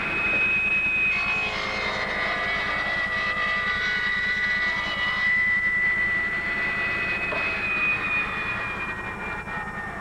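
Table saw ripping a board along the grain. The blade's steady whine drops in pitch about a second in as the wood feeds into it, with a rougher cutting sound for several seconds, then rises back to its free-running pitch near the end once the cut is through.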